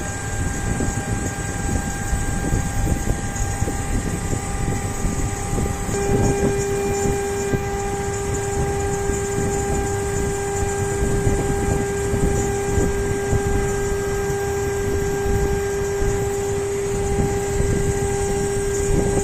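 CNC machine running steadily with a constant motor whine over a rumbling noise; about six seconds in, a stronger, lower steady tone joins and holds.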